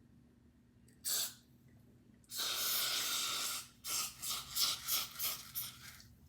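A spray bottle or can spraying: one short spray, then a steady spray of about a second and a half, then a quick run of about eight short spritzes.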